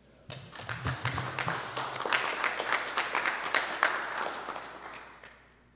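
Audience applauding after a poem: clapping starts about a quarter second in, swells, then thins out and dies away near the end.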